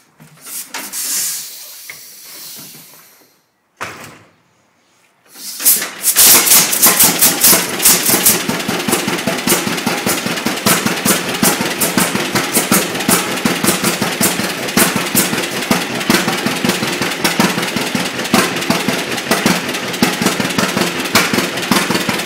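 1935 John Deere Model A's two-cylinder engine on a cold start by hand-turning the flywheel. After a few seconds of hissing it catches on the first pull about six seconds in, then runs steadily with a rapid popping beat.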